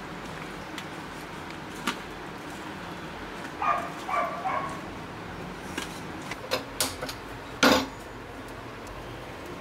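Irregular clicks and knocks of fish pieces and fingers against a steel bowl as the fish is hand-mixed with masala, with a few short ringing tones about four seconds in. A louder metallic clank near the end.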